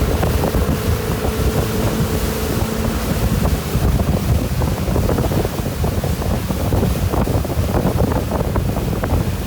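Wind buffeting the microphone and water rushing and splashing on a fast-moving motorboat ride. A steady motorboat engine drone is heard under it for the first few seconds, then fades.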